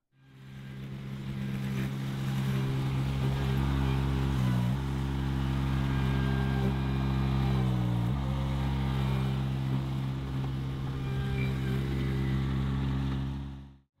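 Baumalight 620D mini skid steer's diesel engine running steadily as the tracked loader drives and pushes its bucket into a dirt pile. The engine pitch dips briefly twice, about four and eight seconds in, as it takes the load.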